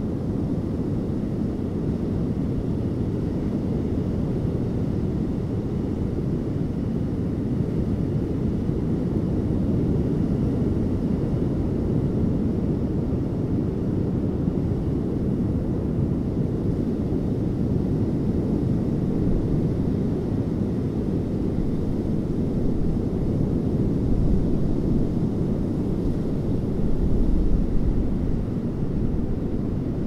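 Ocean surf breaking on a sandy beach: a steady, deep rumble of waves, swelling louder twice near the end.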